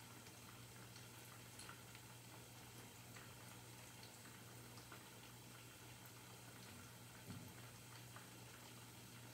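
Near silence: kitchen room tone with a faint steady low hum and scattered faint crackles.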